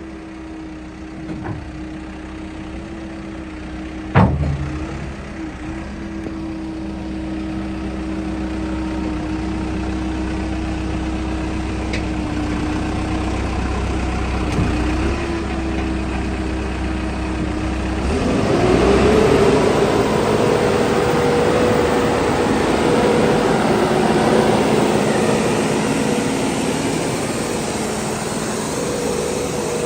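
CASE 695SR backhoe loader's diesel engine idling steadily, with one sharp click about four seconds in. Past the middle it revs up, its pitch rising, and holds at a higher speed, louder and with more hiss.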